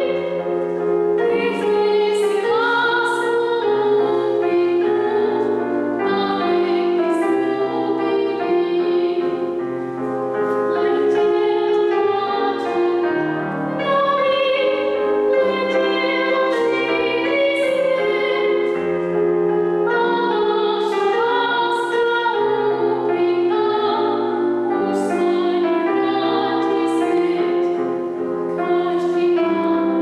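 A female soloist singing with long held notes, accompanied by a Yamaha digital piano.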